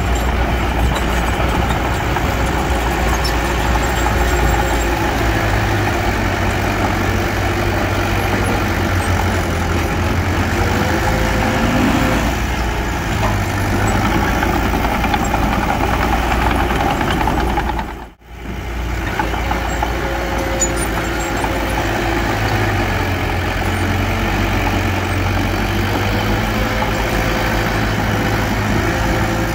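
Diesel engine of earthmoving machinery running steadily at a low drone. The sound cuts out briefly about two-thirds of the way through, then resumes.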